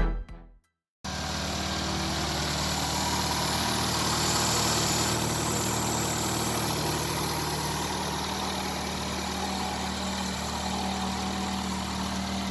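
Replacement engine in a Mazda Rustler pickup idling steadily, the newly fitted engine running.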